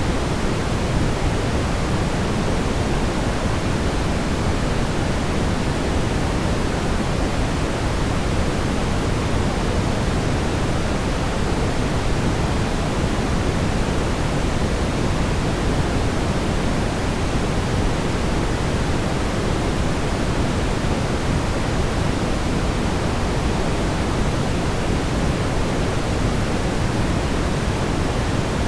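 Steady brown noise: a continuous, even rumbling hiss with most of its energy in the low range.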